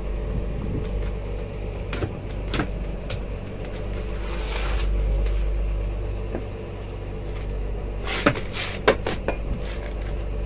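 Boat engine running with a steady low drone, with scattered knocks and clatter from crushed ice being packed over fish in a wooden hold, a cluster of sharp knocks near the end.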